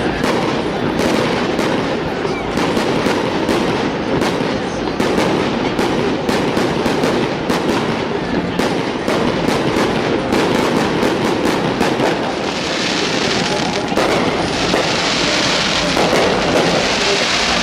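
Fireworks display: a dense run of rapid bangs and crackles, with a hissing crackle growing stronger about twelve seconds in.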